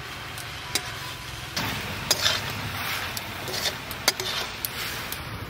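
Water spinach frying and sizzling in a metal wok while a steel spatula stirs it, with sharp clinks and scrapes of the spatula against the pan a few times.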